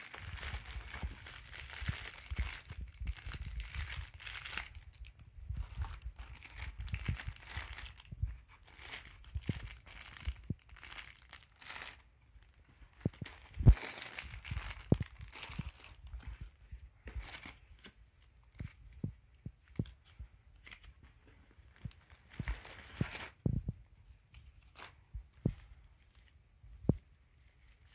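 Plastic packaging and cellophane crinkling as items are handled and pulled out of a cardboard parcel, in spells of rustling mixed with scattered light clicks and taps. The rustling thins out to occasional clicks over the last few seconds.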